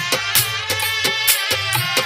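Instrumental devotional folk music played loud through a DJ sound system, with a sustained melodic line over a driving drum beat of about three to four hits a second and heavy bass.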